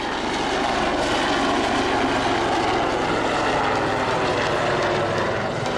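Helicopter flying overhead: a loud, steady rotor and engine noise with a fast low pulsing.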